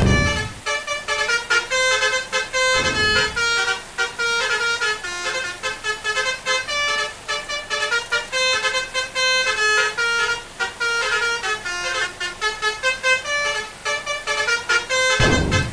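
A double-decker bus's Basuri 'telolet' musical air horn, a set of trumpets playing a fast tune of short notes one after another. A short loud rush of noise breaks in about three seconds in and again near the end.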